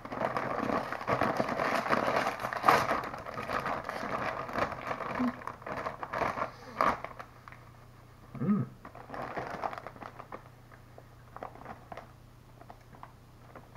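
Foil potato-chip bag crinkling and crackling as it is torn open and handled, loud and dense over the first seven seconds, then dropping to softer, scattered rustles.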